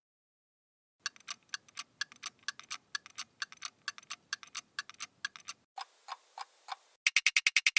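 Clock ticking, about four ticks a second, after a second of silence. It is followed by a few slower, lower-pitched ticks from a different clock. Near the end a much louder and faster ticking begins, about ten a second.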